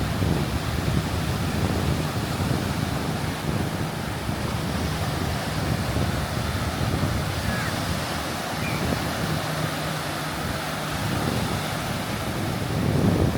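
Gulf of Mexico surf washing onto the beach as a steady rush, with wind buffeting the microphone.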